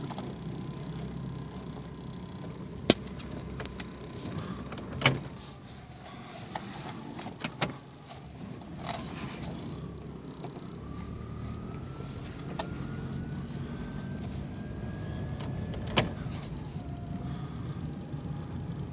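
Inside the cabin of a 1994 Toyota Camry, its 2.2 four-cylinder engine runs smoothly with a steady low rumble as the car drives off, the engine not yet warmed up. A few sharp clicks come through, the loudest about three, five and sixteen seconds in, and a faint whine climbs slowly in pitch through the middle.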